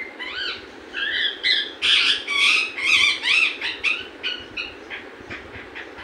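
Green pet parrot calling: a quick run of short, pitched squawks and chirps that swoop up and down, loudest in the middle, then thinning into a few shorter, fainter calls near the end.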